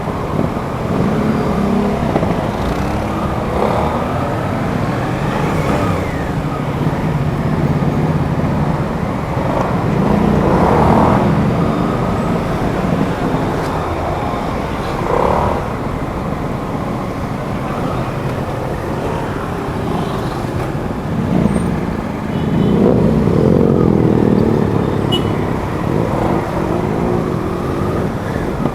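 Suzuki GSX-8S's 776 cc parallel-twin engine running under way, its pitch rising and falling repeatedly as the bike accelerates and eases off, with a strong climb about three-quarters of the way through.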